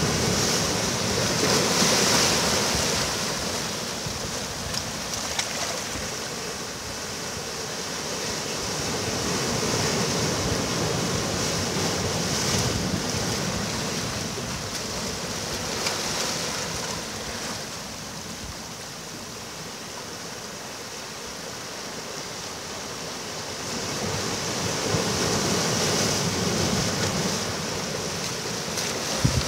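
Ocean surf breaking on a beach, the rush of the waves swelling and easing every several seconds, with a quieter lull past the middle.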